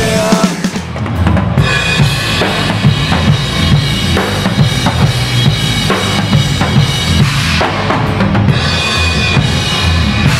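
Rock band playing loudly, driven by a busy drum kit with rapid kick and snare hits and cymbals, over electric guitars.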